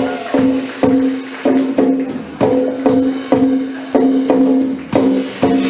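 Music: one pitched note struck or plucked over and over with sharp attacks, about two to three times a second.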